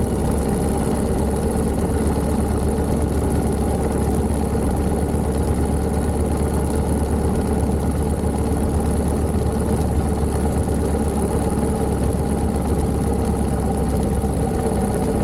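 1929 Méray motorcycle's JAP 600 engine running steadily at an even pace, with no rise or fall in revs.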